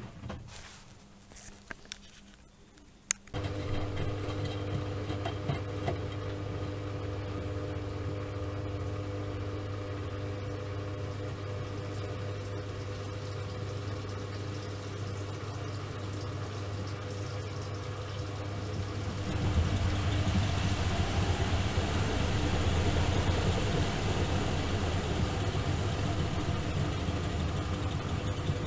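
Miele Softtronic W3923 washing machine in mid-cycle: after a few clicks, a motor switches on with a sharp click about three seconds in and hums steadily. Around twenty seconds in, a hissing rush joins and the sound grows louder.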